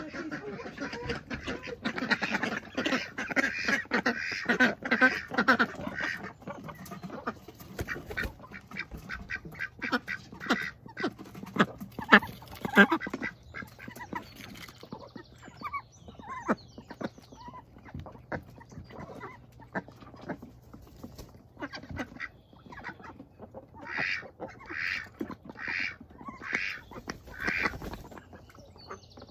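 A flock of domestic ducks, Indian Runners among them, quacking. There is a busy stretch of overlapping quacks in the first few seconds, scattered calls through the middle, and a run of about five loud quacks near the end.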